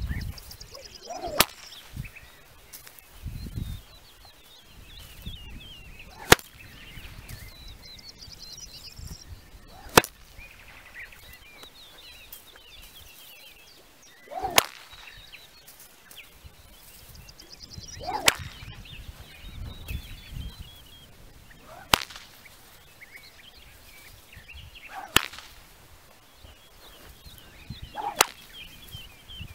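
A whip cracked eight times in a row with the overhead cattleman's crack, one sharp crack every 3 to 4 seconds.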